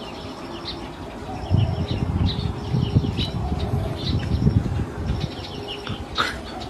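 Small birds chirping in repeated short high calls over a fluctuating low rumble, which is loudest from about a second and a half in until about five seconds. A brief sharp sound comes near the end.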